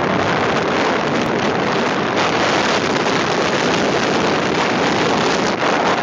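Loud, steady wind rushing over the microphone on the roof of a car driving at speed.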